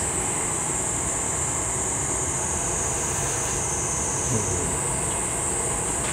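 Gas-fired glassblowing furnace and glory hole running steadily: a constant broad rushing noise with a high hiss, unchanging throughout.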